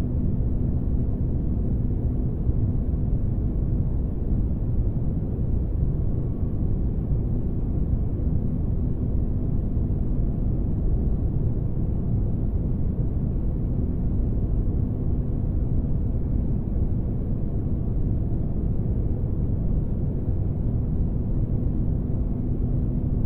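Spaceship ambience used as sleep noise: a steady, deep rumbling drone with a faint constant hum over it, unchanging throughout.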